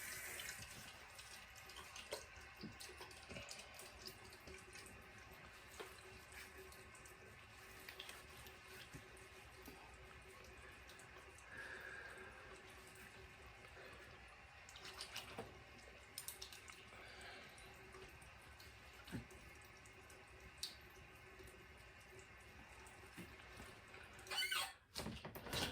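Faint water at a sink: a tap running with dripping and splashing as water is put on the face, along with a few small knocks and a louder knock near the end.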